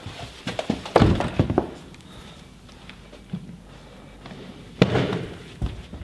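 A quick run of knocks and clicks as a wooden office door is pushed open and walked through, then one heavier thud near the end.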